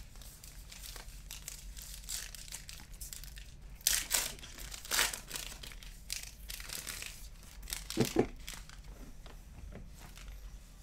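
Plastic crinkling and rustling as trading cards in wrappers and sleeves are handled, with louder crackles about four and five seconds in and two quick louder taps near eight seconds.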